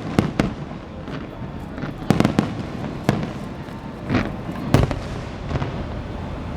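Fireworks shells bursting in an irregular series of sharp bangs, with a cluster of quick cracks about two seconds in and a loud bang near the five-second mark, over a continuous background rumble of the display.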